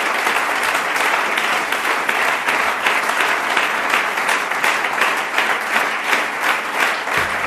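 Audience applauding steadily: a dense, even clatter of many people clapping at once, without a break.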